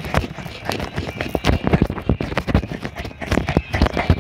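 Footsteps of someone walking quickly, with irregular knocks and rubbing from a handheld phone several times a second.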